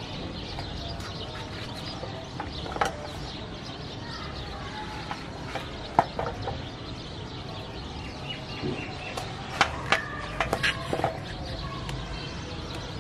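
A knife peeling bottle gourds, with a few sharp clicks and taps, over steady background noise and birds calling.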